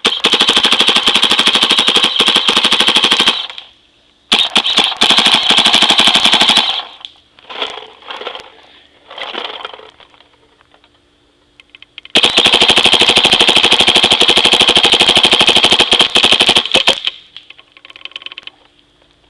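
Proto SLG electronic paintball marker firing rapid strings of shots: three long bursts of a few seconds each, with a few shorter, quieter bursts between them.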